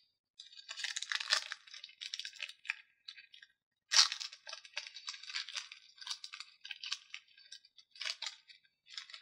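Foil wrapper of a Pokémon trading-card booster pack crinkling as the cards are pulled out and handled, in a series of short crackly rustles with brief pauses, the sharpest about four seconds in.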